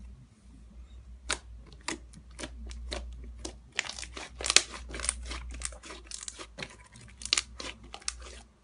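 Pink slime being squeezed and kneaded by hand, giving a rapid series of wet clicks and pops, thickest about four seconds in.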